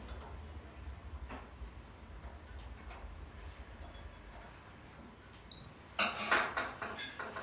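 Small irregular metallic clicks of a screwdriver and loose brass parts being worked free from a skeleton clock movement, then a louder flurry of clinking metal about six seconds in.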